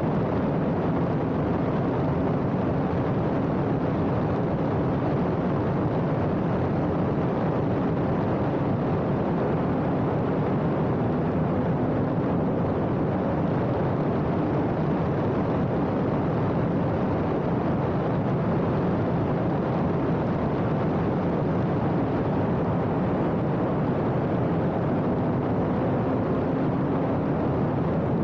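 Radical race car driving at speed, heard on board: a loud, steady rush of engine, wind and road noise, with the engine note holding nearly the same pitch throughout.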